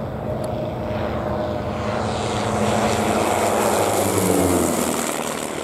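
Two Pitts Special aerobatic biplanes making a low flyby in tandem: their piston engines and propellers swell to a peak about halfway through, the pitch dropping as they pass.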